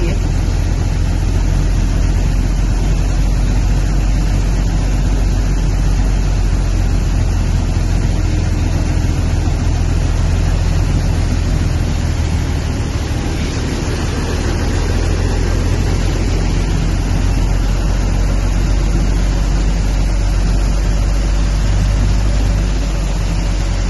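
Steady low engine rumble and rushing road-and-water noise inside the cab of a vehicle driving through deep floodwater.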